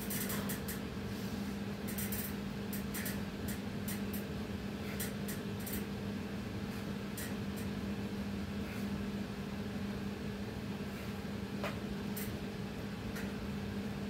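Steady low machine hum from a running appliance, with scattered faint clicks and ticks.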